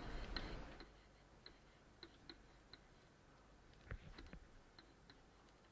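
Near silence with faint, light clicks scattered irregularly: a pen stylus tapping on a tablet screen while writing numbers.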